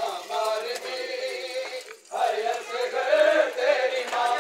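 Male voices chanting a Shia mourning lament (noha), a lead voice on long, wavering held notes, with a brief break about halfway through.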